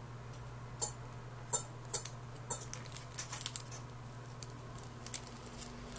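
Basketball trading cards being flipped through by hand: sharp card flicks roughly every half second in the first half, then lighter ticks, over a faint steady low hum.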